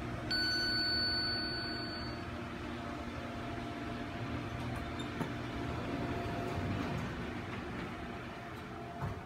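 OTIS elevator hall-lantern arrival chime: a single electronic tone sounds and fades over about a second and a half. The doors then open over a steady low hum.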